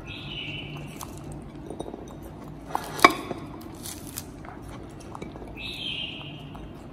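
Pomegranate being broken apart and its seeds picked out by hand over a ceramic plate: soft tearing and squishing with small clicks, and one sharp clink about three seconds in. Two brief high-pitched sounds come near the start and near the end.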